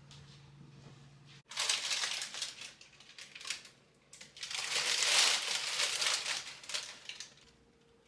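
Crumpling and rustling of something handled, in two spells, the second longer and louder.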